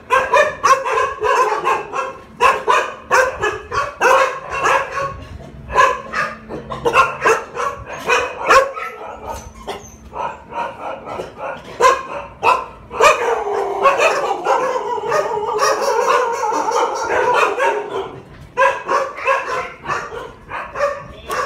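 Kennelled Thai Ridgeback dogs barking over and over in quick, sharp barks, with a longer run of drawn-out howling calls about two-thirds of the way through.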